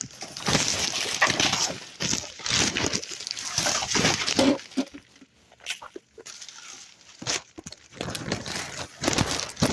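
Scrap and debris being rummaged through in a dumpster while wire is pulled out: irregular bursts of rustling, scraping and clattering with sharp knocks, easing off in the middle and picking up again near the end.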